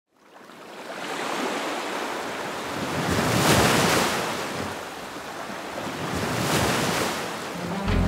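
Ocean surf fading in from silence, with two waves swelling and washing in, about three and a half seconds in and again three seconds later.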